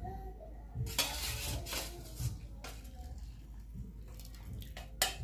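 Kitchenware being handled: several clinks and knocks of dishes and utensils, with a brief rush of noise about a second in and a sharp click near the end.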